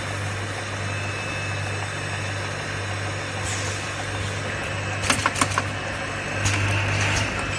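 Automatic air-blowing bottle rinsing machine running: a steady low hum with short hisses, and a quick cluster of sharp clicks about five seconds in.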